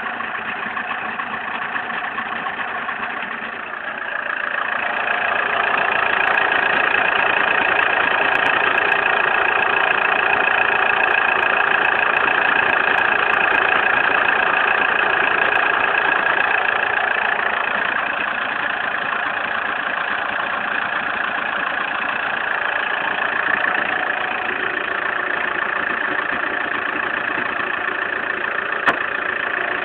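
Opel Zafira engine running steadily, growing louder about four seconds in with a steady high whine over the engine note, then easing slightly later on.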